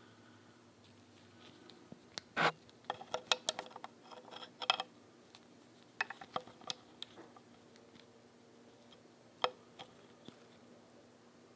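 Small metal clicks and clinks of Singer 15-91 sewing machine parts being handled and fitted by hand: a quick cluster about two seconds in, a few more a little later, and one last click near the end.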